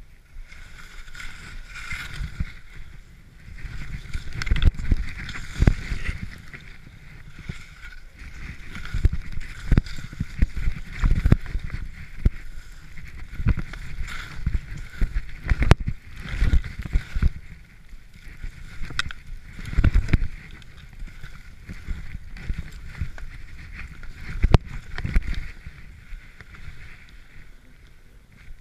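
Skis running and turning through deep powder snow, a continuous rushing hiss with irregular low thumps and a few sharp knocks as the skier rides over bumps.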